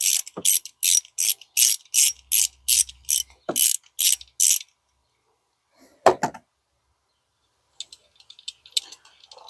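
Ratchet wrench with a Torx T30 bit clicking in quick, even strokes, about three a second, as the bolt holding the coil pack bar is loosened. A single knock follows about six seconds in.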